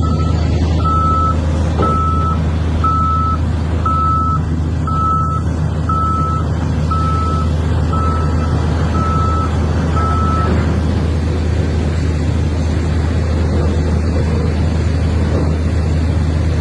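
Heavy vehicle's reversing alarm beeping about once a second over a steady diesel engine drone; the beeping stops about ten seconds in while the engine keeps running.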